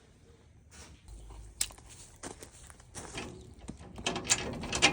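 A quiet run of sharp clicks and knocks, like objects being handled, growing busier and louder from about four seconds in.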